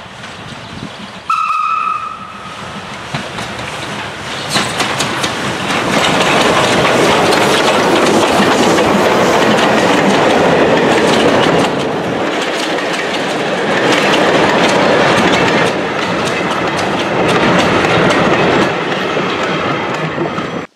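Steam train hauled by the 140C38, a 2-8-0 steam locomotive: one short whistle blast a little over a second in, then the train passes close by, loud, its wagon wheels clattering over the rail joints.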